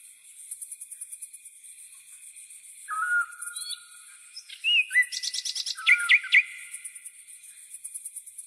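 Birds calling: short whistled notes, some sliding up or down in pitch, with a burst of quick chirps in the middle, over a steady high, rapidly pulsing trill.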